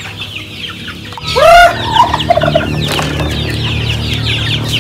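Free-range chickens in a pen: chicks peep continuously in quick high chirps, a chicken gives one loud drawn-out squawk about a second and a half in, and short clucks follow just after.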